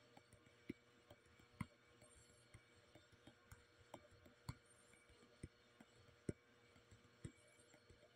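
Faint, sharp taps of a fingertip on a phone's touchscreen, irregular, about one a second, over near silence.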